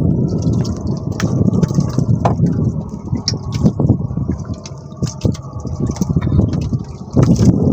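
A steady low rumble, with scattered small clicks and wet spatters as a squid is shaken off its jig into a plastic basket.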